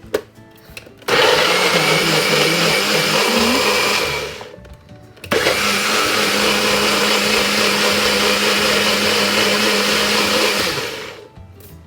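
NutriBullet blender running in two goes, pureeing a mango and hot-pepper sauce: a run of about three seconds, a brief stop, then about five and a half seconds more before it cuts off.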